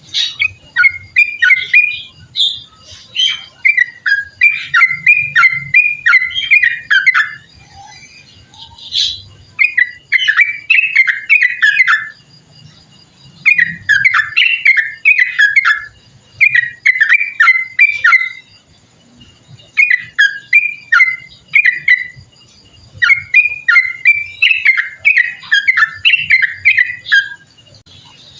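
Yellow-vented bulbul singing loudly in long, rapid phrases of quick falling notes, about eight phrases separated by short pauses.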